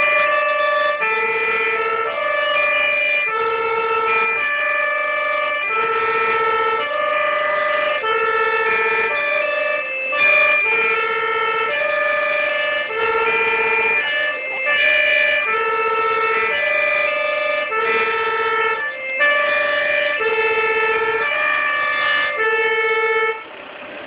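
German two-tone emergency vehicle siren (Martinshorn) sounding its alternating high-low "tatü-tata" call, the two notes a fourth apart and switching roughly once a second; it cuts off shortly before the end.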